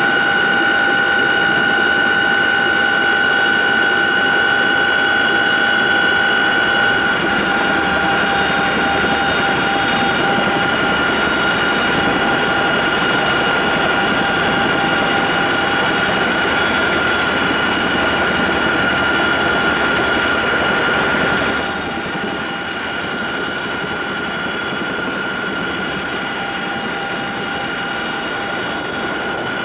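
Cabin noise inside a CH-47J Chinook helicopter: its twin turboshaft engines and tandem-rotor drive running, a dense rush with several steady high whine tones. The tones shift a little after a few seconds, and the noise drops noticeably about three-quarters of the way through.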